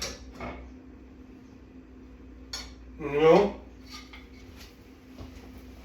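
Kitchenware clinking: a few short, sharp clinks of dishes and utensils, a couple of seconds apart, with a brief voice sound about three seconds in.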